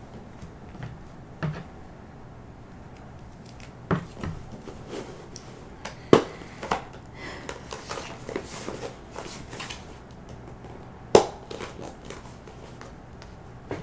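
Handling of embroidery floss and plastic storage bins: scattered plastic clicks and knocks, the two sharpest about six and eleven seconds in, with a stretch of rustling between them.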